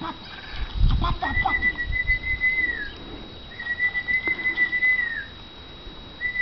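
A person whistling to call hens: two long, steady whistled notes, each about a second and a half, dipping in pitch as they end. A brief low rumble comes about a second in.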